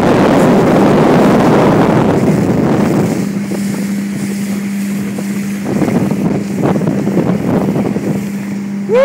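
Motorboat running at speed: a steady engine hum under wind buffeting the microphone and water rushing past the hull. The wind noise is heaviest for the first three seconds, after which the engine hum stands out more clearly.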